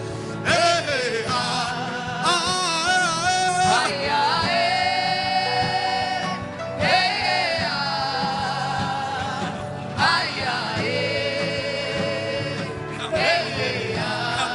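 Gospel worship music: a voice sings long, held, wavering notes and glides without clear words over a steady instrumental accompaniment.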